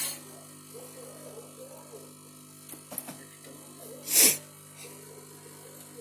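A single loud sneeze about four seconds in, over a steady low electrical hum, with a couple of light clicks just before it.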